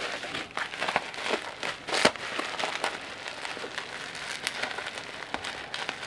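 Plastic bubble wrap rustling and crinkling as it is handled and pulled out of a box, with many small sharp crackles; one louder crackle about two seconds in.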